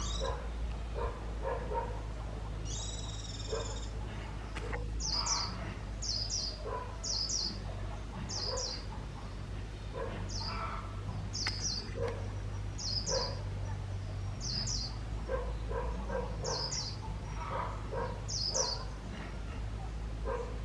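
Caged decoy white-eye calling: short, high-pitched double chirps repeated about once a second, with one longer warbled call a few seconds in. Lower-pitched animal sounds and a steady low hum run underneath.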